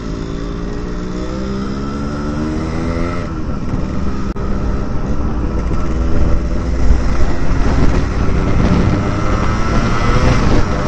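Yamaha RX-King's two-stroke single-cylinder engine accelerating hard through a free-flowing aftermarket exhaust. The pitch climbs, drops at a gear change about three seconds in, then climbs steadily again.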